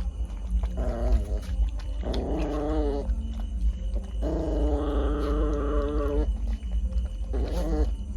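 A dog vocalizing in four wavering, drawn-out calls; the longest lasts about two seconds.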